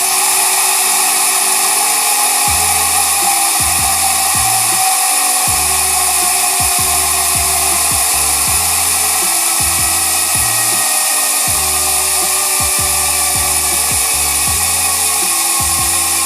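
Sagmit M120 rear hub's freewheel ratchet, six pawls with three teeth each for 120 engagement points, buzzing continuously at high speed as a fine, high-pitched whir. Its pitch slowly falls. Background music with a bass line plays underneath.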